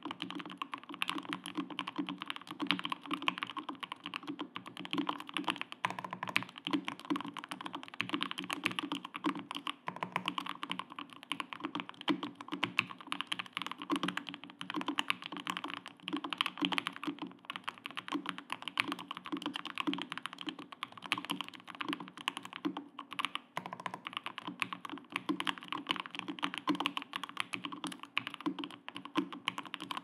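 Fast, continuous typing on a J-02 LE gasket-mounted mechanical keyboard with lubed Thic Thock Marshmallow V1 linear switches, a carbon-fibre plate and GMK Olivia keycaps: a dense, unbroken stream of key strikes.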